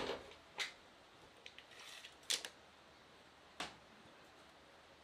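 A steel tape measure being handled against the beam and the steel support column: a handful of sharp clicks about a second apart, with a short rattle near the middle.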